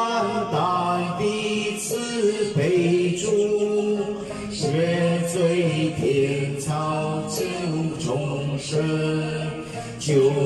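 A man singing a slow, chant-like devotional melody into a handheld microphone over accompanying music with sustained low notes.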